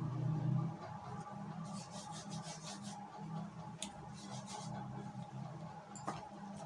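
Hands rubbing and patting flour over thin samosa pastry sheets and handling a plastic zip-lock bag: soft rubbing and rustling in short bursts, with a few small clicks, over a steady low hum.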